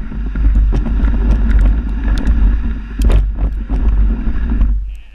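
Dog sled moving over snow: a loud, steady rumble of the runners with scattered clicks and knocks, and wind buffeting the microphone. It cuts off suddenly near the end.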